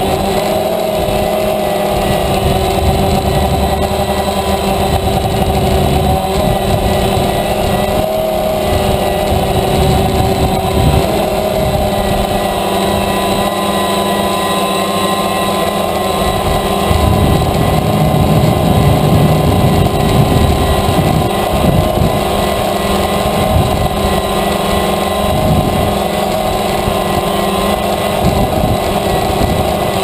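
DJI Phantom quadcopter's motors and propellers running with a steady, multi-toned hum, heard from the aircraft itself, the pitch shifting slightly as the motors adjust speed. Wind buffets the microphone with an uneven low rumble.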